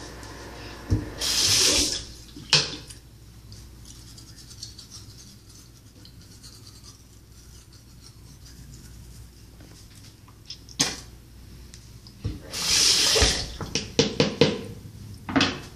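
Manual toothbrush scrubbing teeth, faint through most of the stretch. Two short loud hissing bursts come about a second in and near the end, followed by a few sharp knocks.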